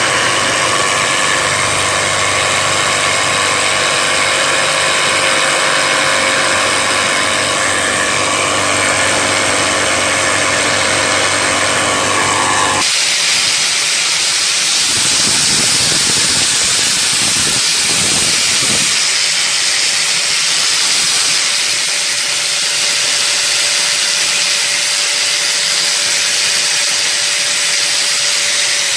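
Electric power tool mounted under a work table running steadily, its bit spinning through the tabletop while a wooden block is shaped against it. About 13 seconds in, the sound changes abruptly to a steady whine with hiss, and at the end the pitch falls as the motor winds down.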